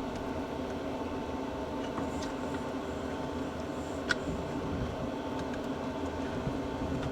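A steady mechanical hum, with a faint click about four seconds in.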